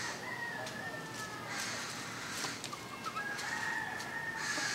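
Feral chickens calling, with a rooster crowing: two drawn-out high calls, one just after the start and one about three seconds in.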